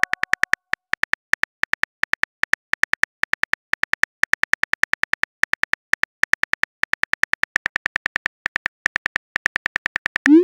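Simulated phone keyboard key-click sounds, a rapid run of short, identical clicks several a second as a text message is typed letter by letter. Near the end, a short rising swoosh as the message is sent.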